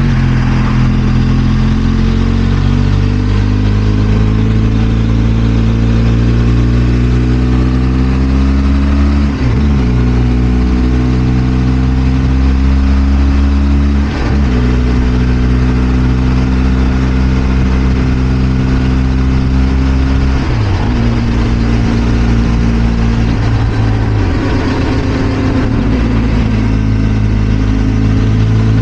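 Benelli TRK 502 X parallel-twin motorcycle engine under way, its pitch climbing slowly as it pulls and then dropping sharply about four times as it changes gear.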